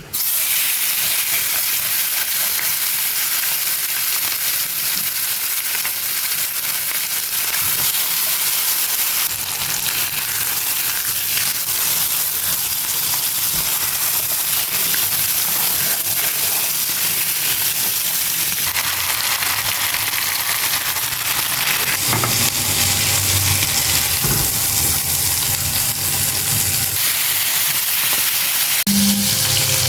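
Boneless chicken drumettes sizzling in a hot grill pan: a loud, steady frying hiss.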